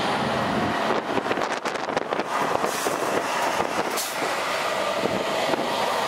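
A semi truck running in blizzard conditions, with strong wind buffeting and crackling on the microphone from about a second in.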